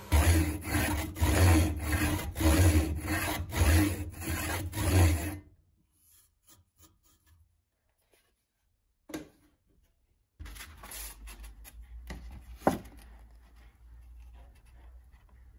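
Hand saw cutting into a beech handle, with rhythmic strokes about two a second that stop after about five seconds. Later there are a soft click and light handling of wood with one sharp knock.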